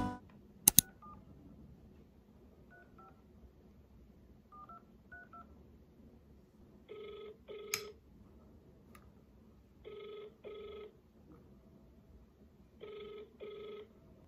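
Telephone ringback tone heard faintly through a mobile phone held to the ear: three double rings about three seconds apart, the call ringing without being answered. Two sharp clicks come just before the ringing starts.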